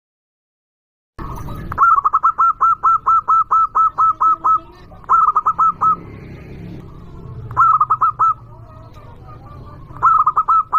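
Zebra dove (perkutut) cooing loudly: a long run of quick staccato notes, about six a second, then three shorter bursts of the same notes. The calling starts a little over a second in, after silence.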